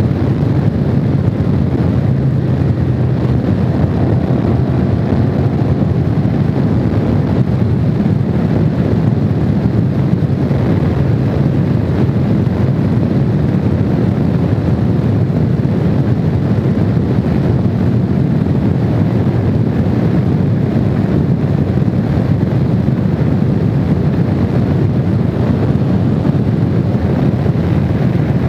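Honda VFR750's V4 engine running at a steady cruising speed, heavily mixed with wind rushing over the microphone.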